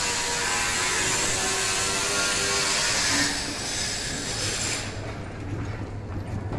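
Railway station platform noise: a loud, steady rushing hiss with a few faint steady tones. It eases about three seconds in, then the hiss cuts off sharply near the end, leaving a low hum.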